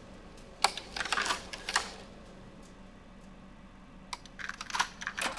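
Slide projector changing slides: two short runs of mechanical clicking and clacking, one about half a second in and one near the end, over a faint steady hum.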